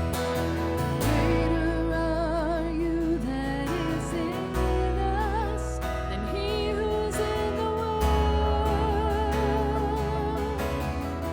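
Live worship band playing a slow song, with a singer holding long notes with vibrato over sustained bass notes that change every few seconds.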